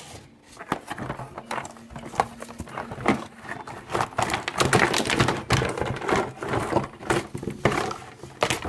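Cardboard box being opened and hard plastic toy parts being pulled out and tipped onto a table: irregular knocks, clatters and scrapes of plastic against cardboard and against each other.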